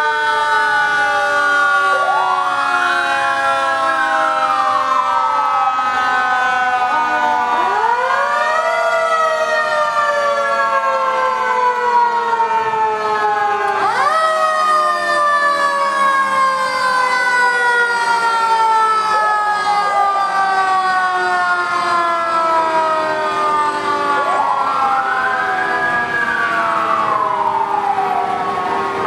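Several parade-vehicle sirens, from a fire truck and a vintage police car, wailing at once and overlapping. Each one winds up quickly and then falls slowly in pitch, with fresh wind-ups about two seconds in, around eight and fourteen seconds, and again near the end.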